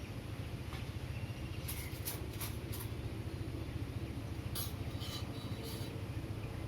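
Steady low hum of distant city traffic, with two short runs of quick high bird chirps: a few about two seconds in and a few more around five seconds in.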